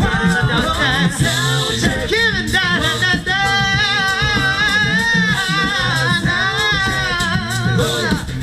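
A cappella vocal group singing held, gliding wordless lines in harmony over a sung bass line and beatboxed percussion.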